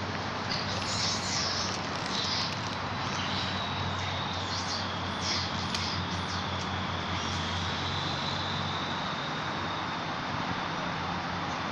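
Outdoor ambience: a steady rush with a low hum under it, and a string of short high-pitched chirps or squeaks over the first half. A faint, thin, steady high tone comes in at about three seconds.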